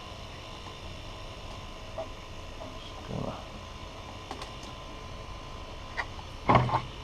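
Handling of a welder and its spool gun: a few light clicks, a short rustle and, near the end, a couple of heavier knocks, over a faint steady hum.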